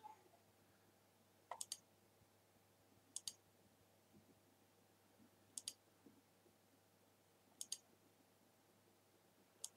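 Computer mouse button clicked in quick double-clicks, five times, a couple of seconds apart, over near silence.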